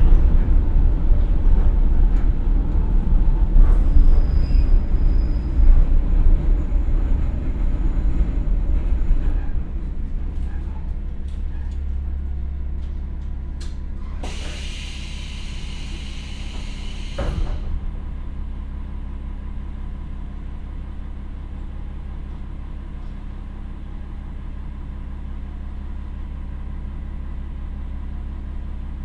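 KiHa 47 diesel railcar heard from inside the passenger cabin, rolling to a stop, its rumbling wheel and running noise dying away over the first ten seconds. About fourteen seconds in comes a hiss of compressed air lasting about three seconds and ending in a short knock. After that, its Komatsu diesel engine idles steadily with a low hum while the railcar stands at the station.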